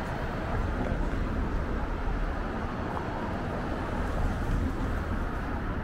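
Steady city street ambience of passing car traffic, a continuous low rumble with no single standout event.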